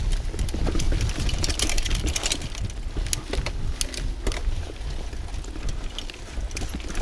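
Mountain bike riding over a dirt forest trail: a steady low rumble of the tyres on the ground, with frequent sharp clicks and rattles from the bike as it goes over bumps.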